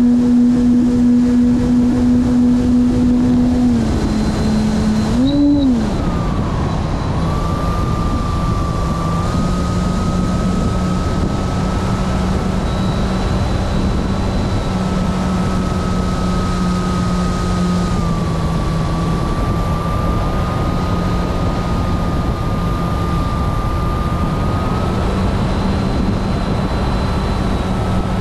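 A radio-controlled model airplane's motor and propeller droning steadily in flight, heard from on board with wind rushing past. The pitch drops about four seconds in, swells briefly, then settles to a lower steady drone with a thin high whine over it.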